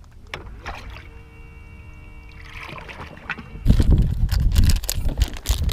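Clunks, rattles and knocks from opening a bass boat's deck storage compartment and handling the tackle inside, loud and busy from just before four seconds in. Before that, a steady hum of several even tones lasts about two seconds.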